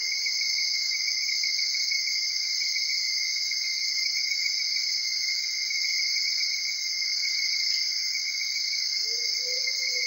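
Night insect chorus of the rainforest, crickets or katydids trilling without a break in a high, steady band with a second, lower steady note under it. A faint, low steady tone joins about nine seconds in.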